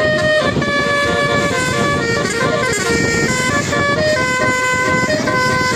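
Bus telolet horn, a set of musical air trumpets, playing a tune of held notes that step to a new pitch about every half second, at times two notes together, over a steady low rumble.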